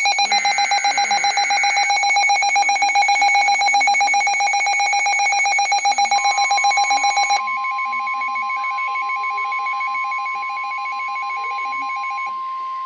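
Emergency Alert System alert tones. A loud, rapidly pulsing alarm tone is joined about six seconds in by a steady single tone. The pulsing stops about seven seconds in, and the steady tones carry on a little quieter.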